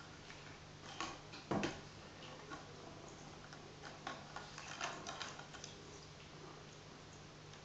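Light, scattered taps and clicks of a plastic novelty straw batted by a cat's paws against wooden floorboards. There is a louder knock about a second and a half in and a flurry of taps around four to five seconds in, over a faint steady low hum.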